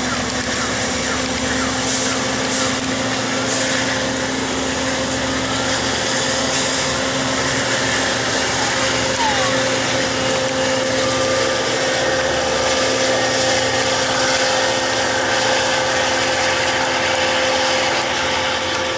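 Steady hum and rumble of trains at a railway station platform, with a constant low drone that neither rises nor falls.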